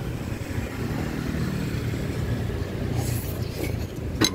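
Steady rumble of passing road traffic, cars and motorcycles running by. Near the end a metal spoon clinks sharply against a ceramic plate.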